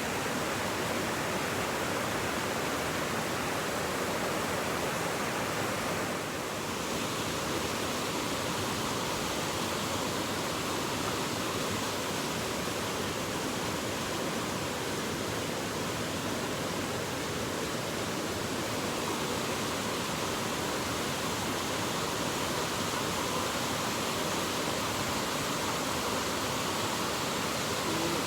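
Njupeskär waterfall's water rushing steadily, an even noise that dips briefly about six seconds in.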